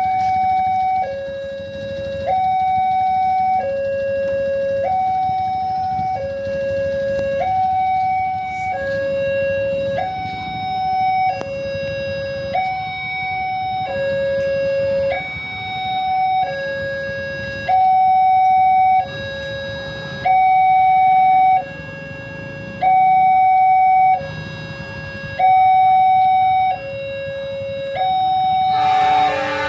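Railway level-crossing warning alarm sounding its steady two-tone signal, alternating between a lower and a higher tone about every second, as a train approaches the crossing. Near the end a train's horn sounds loudly over it.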